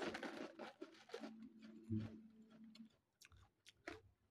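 Quiet chewing of potato chips, with crackly handling of a clear plastic container in the first second. A low steady hum follows for about a second and a half in the middle, then a few faint clicks.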